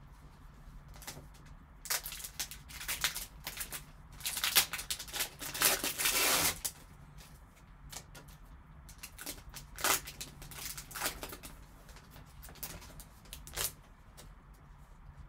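Foil trading-card pack wrapper crinkling and tearing open, loudest about four to six seconds in, followed by the cards sliding and tapping against each other as they are handled.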